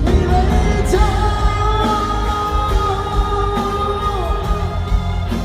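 Live pop-rock band with a male singer holding one long high note for about three seconds, starting about a second in and sliding down at the end.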